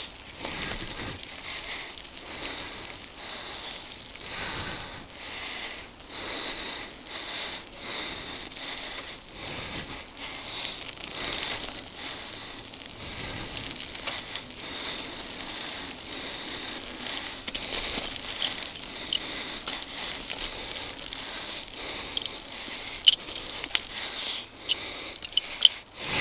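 Mountain bike rolling fast along a dirt and gravel singletrack: steady tyre noise on the loose surface with frequent small clicks and rattles from the bike over bumps, and a few sharper knocks near the end.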